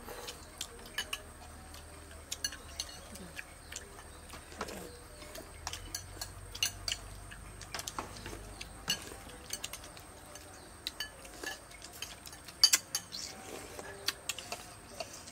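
Metal spoons and chopsticks clinking and scraping against ceramic soup bowls while eating, in scattered, irregular clicks, with one sharper clink a couple of seconds before the end.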